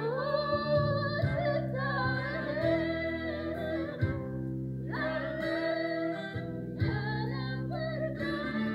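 A woman singing into a microphone over a Yamaha electronic keyboard. She sings several phrases of long held notes with vibrato, each breaking off briefly, while the keyboard holds steady low chords beneath.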